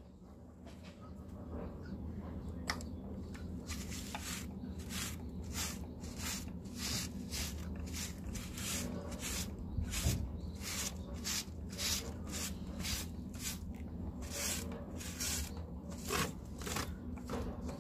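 A cat eating close to the microphone: quick, regular chewing and smacking, about two to three chews a second.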